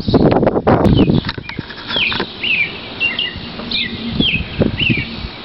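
Camera being picked up and handled: about a second of loud bumping and rubbing on the microphone, then a bird calls a run of short, high, falling chirps.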